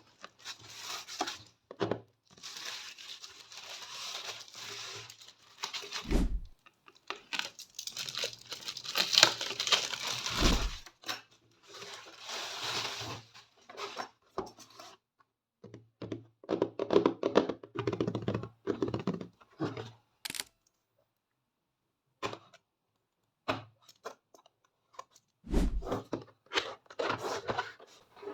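Packaging of a keyboard and mouse combo being opened by hand: several long stretches of tearing and crinkling of plastic and paper, three dull thuds as the box is handled, and a spell of quick clicks and rattles, with a few nearly quiet seconds in the second half.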